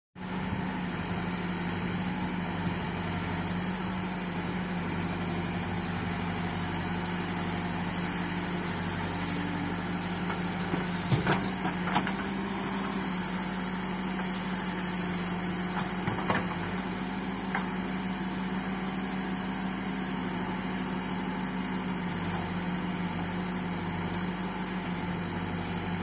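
Bull backhoe loader's diesel engine running steadily as the machine digs soil with its backhoe arm, with a few short sharp knocks about 11, 12 and 16 seconds in.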